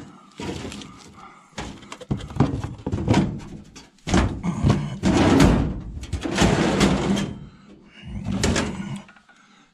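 Rummaging in a metal filing-cabinet drawer: a coil of rope and a boxed power tool are lifted out, with bouts of scraping, rustling and knocking against the sheet-metal drawer.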